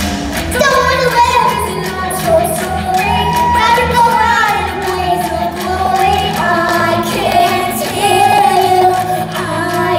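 A pop-style backing track starts suddenly, with a group of children singing along over a steady bass line.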